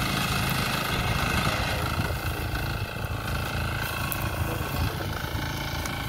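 Walk-behind wheat reaper's small engine running steadily while the machine cuts standing wheat.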